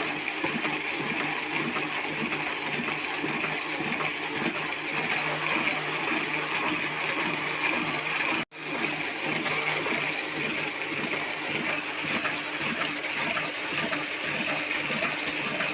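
Paper printing machine running steadily: continuous mechanical running noise over a constant hum. It cuts out for an instant about eight and a half seconds in, then carries on unchanged.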